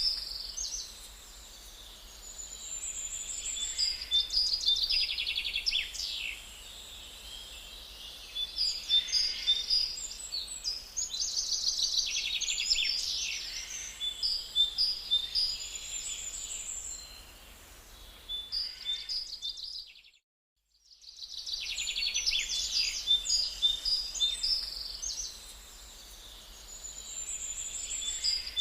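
Woodland birdsong: several birds chirping and singing quick trills in repeated phrases. The sound cuts out completely for about a second two-thirds of the way through, then returns.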